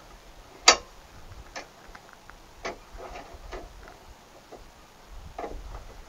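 Sharp click of a plastic rod clip snapping onto a metal lock rod in a tailgate latch linkage, followed by several fainter ticks and taps as the rods are handled.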